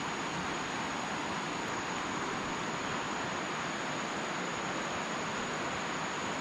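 Steady, even rushing of a waterfall below a hanging bridge, with a faint steady high whine over it.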